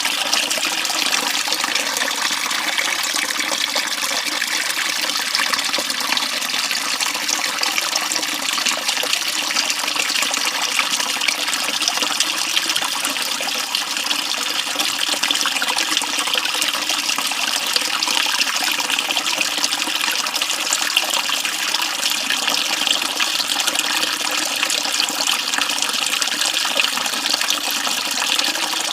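Small forest creek flowing: a steady, unbroken sound of running water.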